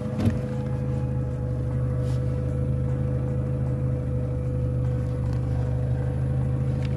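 Chrysler PT Cruiser engine idling steadily just after starting, with a faint steady tone over the idle. A brief knock sounds near the start.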